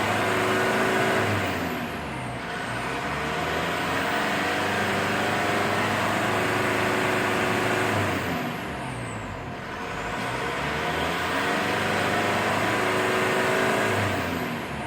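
Mitsubishi Strada common-rail turbo-diesel engine revved up and held high three times, easing off between, with a high whine rising and falling with the revs. It is being free-revved to check for black exhaust smoke.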